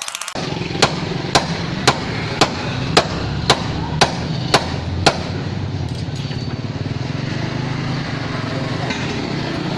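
Nine evenly spaced hammer blows, about two a second, over a steady low machine drone. The hammering stops about five seconds in while the drone carries on.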